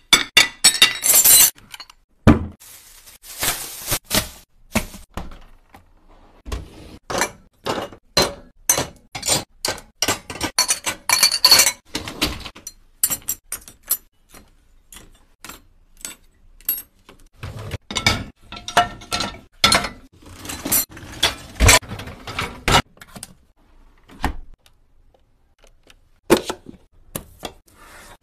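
Kitchen things being handled and set down: a quick, irregular run of clinks, clacks and knocks of dishes and containers on a countertop.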